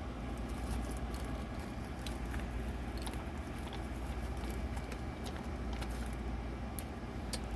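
Small plastic jars and containers clicking and rattling as they are rummaged through, a light scatter of ticks over a steady low hum.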